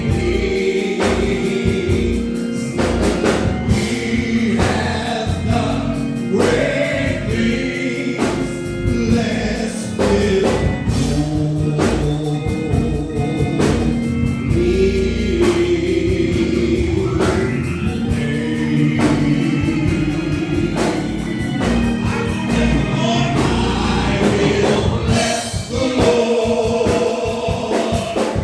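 Gospel choir singing with a band accompaniment: bass and drums keeping a steady beat under the voices.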